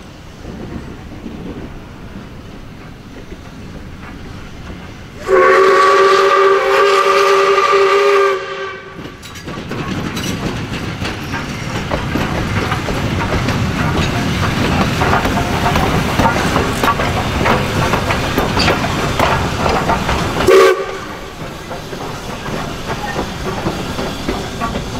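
Ex-South Australian Railways steam locomotive 621 sounds its chime whistle in one loud blast of about three seconds, several notes together. The train then runs hard, with steam hissing and wheels clicking over rail joints, growing louder, and gives a very short second toot near the end before the noise drops back.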